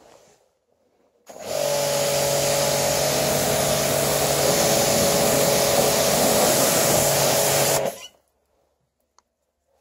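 Galilee GPHW 2500 pressure washer spraying: about a second in, the jet's hiss and the machine's steady hum start together. The water jet hits the tractor's front weight frame, and all of it cuts off suddenly near the end.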